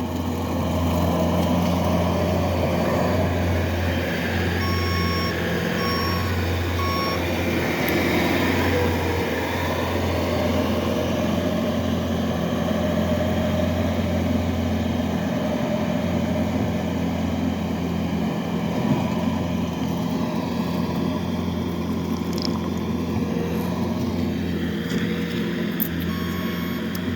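Engine of a pen-cleaning machine running steadily, with its reversing alarm beeping three times about five seconds in and beeping again near the end.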